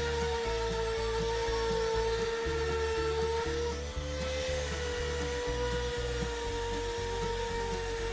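DeWalt random orbital sander running steadily against the end grain of a wooden block with flush-cut dowels, a steady whine with a rasp of sandpaper on wood. Its pitch rises briefly about four seconds in as the block comes off the pad.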